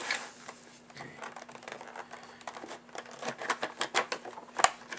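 Cardboard and clear plastic packaging of a wand box being handled and pried open: crinkling and rustling with a run of light clicks, and one sharper snap near the end.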